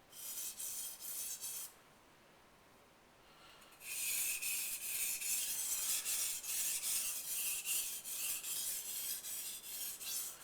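Steel knife blade stroked back and forth across a 1000-grit water stone, a gritty scraping at several strokes a second. A short run of strokes stops about two seconds in and starts again after a pause of about two seconds, then carries on. These are the finishing strokes on the coarse stone before checking for a burr.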